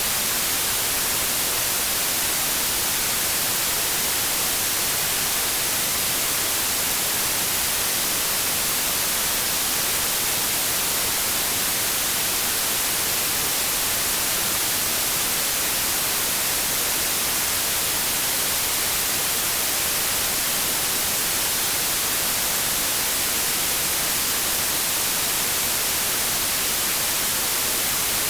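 Television static from a set tuned to no signal: a steady, even hiss with no change in it.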